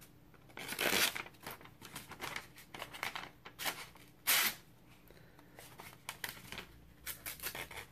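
Marbles MR302 fixed-blade knife slicing through a sheet of thin lined notebook paper, with paper rustling in the hands. Two louder short rasps of the blade going through, about a second in and about four seconds in, with lighter scratchy crinkles between.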